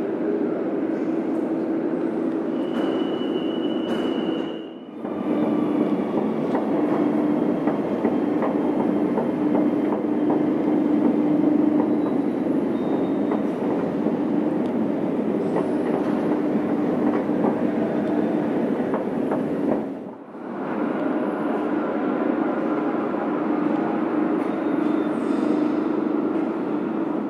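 Metro train running on steel rails, a steady rumble with a low hum and a brief high wheel squeal about three seconds in. The sound drops out briefly twice, once near the start and once near the end.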